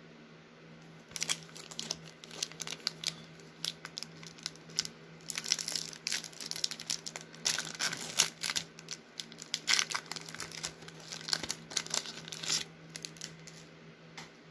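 Baseball card pack wrapper crinkling and tearing as it is pulled open by hand, with dense, irregular crackles from about a second in until shortly before the end.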